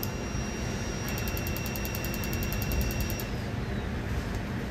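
Steady whooshing machine noise with a low hum, and a thin high whine with a fast faint ticking that stop about three seconds in.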